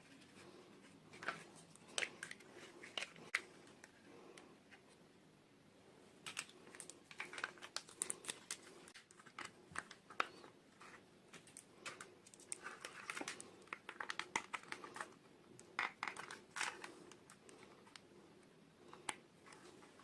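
Hands unboxing miniature toys: plastic packaging crinkling and tearing, with snips and small sharp clicks in irregular clusters and short quieter gaps.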